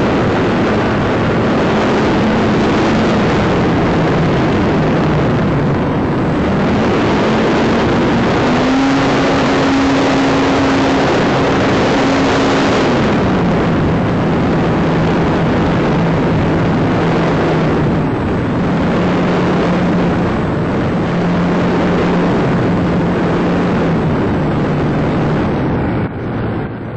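RC airplane's motor and propeller, picked up by a phone taped under the fuselage in flight, under a heavy rush of wind on the microphone. The motor's hum steps up and down in pitch several times as the throttle changes.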